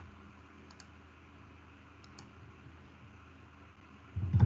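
A few faint computer-mouse clicks over quiet room tone, then a short, louder noise just before the end.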